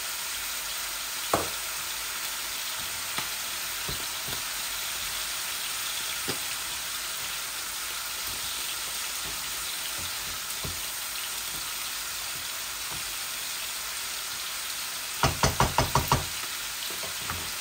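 Diced papaya, carrot and onion sizzling steadily as they fry in oil, with a few knocks from a wooden spatula against the pan. Near the end comes a quick run of about six knocks in a row.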